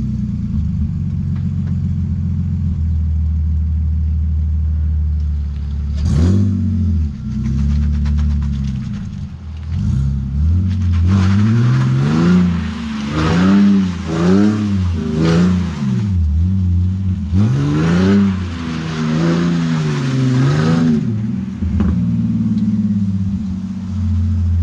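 Car engine idling steadily, its misfire fixed, with a short rev about six seconds in. From about eleven seconds it revs up and down repeatedly for some ten seconds with a loud hiss of spinning tyres as the car does donuts, then settles back to idle.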